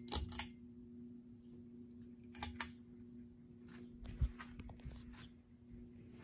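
Aloha Breeze ceiling fan switched to medium speed: a switch click, then the motor's steady low electrical hum. A couple of light clicks come about two and a half seconds in, and a soft knock a little after four seconds.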